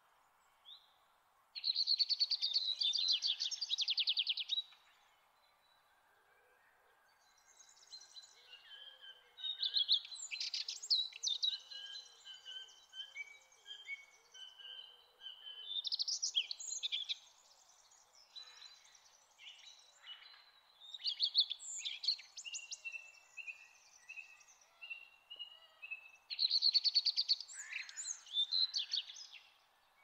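Songbirds singing, with overlapping chirps, whistled phrases and rapid trills. A loud trill comes about two seconds in and again near the end, over a faint steady hiss.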